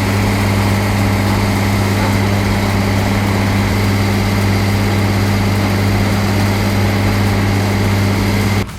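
Large Doppstadt tree shredder running, engine and rotor giving a steady low hum with a hiss of machinery noise over it.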